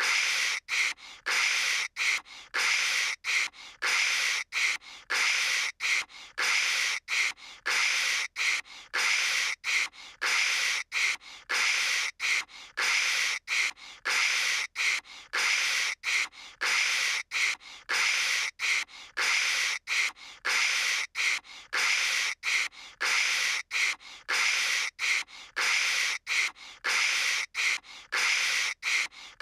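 A voice imitating phone static with the mouth: short bursts of hissy, crackly noise, about two a second with brief gaps between, repeating evenly.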